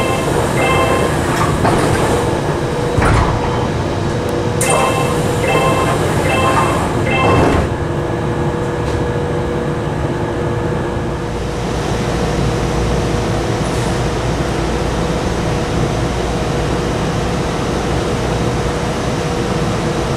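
Semboku Rapid Railway 7020 series train doors closing: a repeating electronic door chime of short beeps, a knock about three seconds in, and a thump as the doors shut about seven and a half seconds in. After that comes a steady electrical hum from the standing train.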